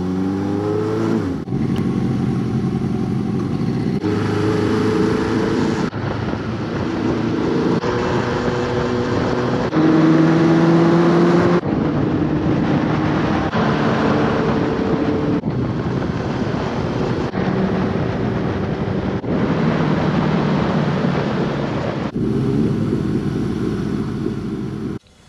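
Air-cooled inline-four motorcycle engine running on the road, with wind and road noise. It rises in pitch as it accelerates in the first second and again near the end, and the sound shifts abruptly every couple of seconds.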